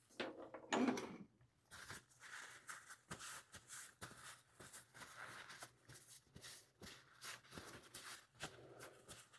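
Faint rustling and rubbing of a paper towel wiped over a rusticated briar pipe bowl, with a louder rustle a little under a second in. The towel is taking off excess wet dye to even out the stain and bring up highlights on the rustication.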